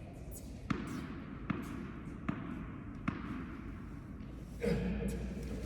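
A tennis ball bounced four times on an indoor court in an even rhythm, about one bounce every 0.8 seconds, as a player does before serving. A louder sound, likely a voice, starts near the end.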